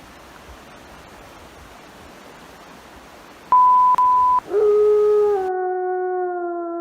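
Steady rushing creek noise, then a loud electronic high beep of about a second, broken briefly in the middle, about three and a half seconds in. A lower electronic tone follows and slowly falls in pitch as the creek sound cuts out abruptly.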